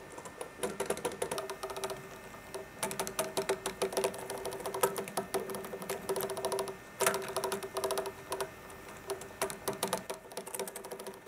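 Homemade robot insect built from a cassette player, its motor whining steadily while its legs and mechanism clatter in rapid, irregular clicks as it struggles and slips trying to crawl forward.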